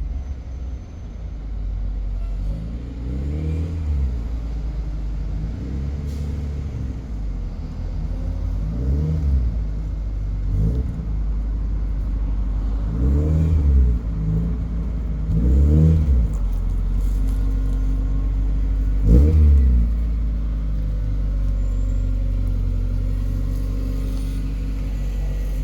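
1991 Mazda Miata NA's 1.6-litre four-cylinder engine running at low speed with several short revs that rise and fall, as the car is manoeuvred slowly into a tight parking spot.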